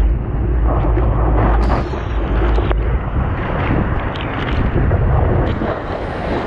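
Wind buffeting the microphone of a board-mounted camera as a stand-up paddleboard rides a breaking wave, over the rush of water along the board and spray splashing across it. The low rumble is heaviest in the first half and eases off after about three seconds.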